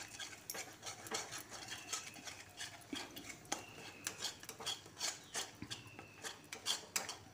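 Flat metal spatula scraping and stirring thick masala paste around a metal kadhai in quick, irregular strokes, several a second, while the masala is fried (the bhuna stage).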